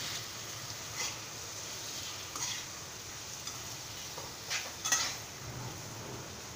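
Freshly added chopped tomatoes sizzling in a non-stick kadai of fried onion masala while a metal slotted spoon stirs them, with a few sharp clinks of the spoon against the pan, the loudest about five seconds in.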